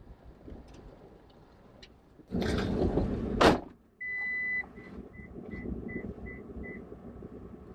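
A rushing, sliding sound of about a second ends in a sharp knock, like a panel or door shutting. Then an electronic beeper sounds one long tone followed by six short beeps, about three a second.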